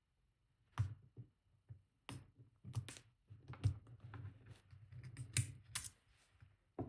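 Irregular small metallic clicks and scrapes as the copper retaining ring is worked off the cut-open lock body of a disk detainer lock.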